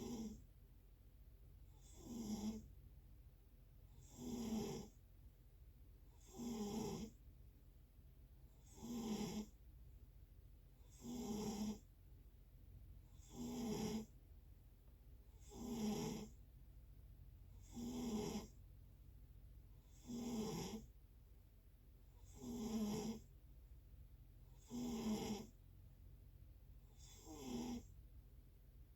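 Snoring in a steady rhythm, one snore about every two and a half seconds, each a short, low buzzing rasp with a breathy hiss.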